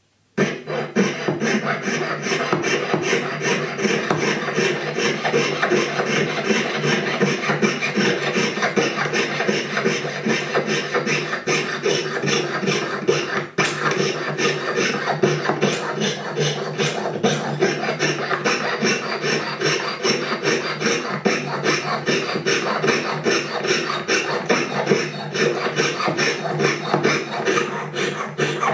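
A jeweller's saw cutting through a metal ring in quick, even back-and-forth strokes, taking out a thin sliver to size the ring down. The sawing starts suddenly just after the beginning and breaks off very briefly about halfway through.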